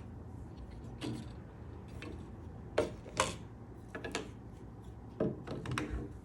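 Irregular clicks and clinks of metal parts being handled and fitted inside a SawStop PCS table saw during a swap from the standard brake cartridge to the dado brake. Two sharp clicks in quick succession near the middle are the loudest, and a cluster of smaller knocks follows near the end.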